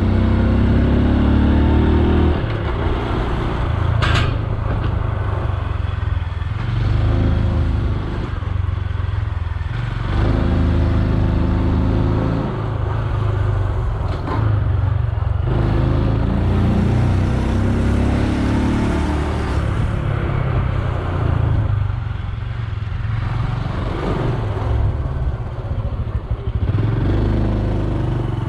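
Honda Super Cub C125's air-cooled single-cylinder engine as the bike rides, repeatedly rising in pitch as it accelerates through the gears, then dropping at each shift or lift of the throttle, over a steady low rumble. A single sharp click about four seconds in.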